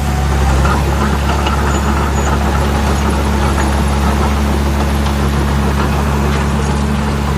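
RC scale CAT D5G bulldozer running with a steady, low, engine-like drone that holds even throughout.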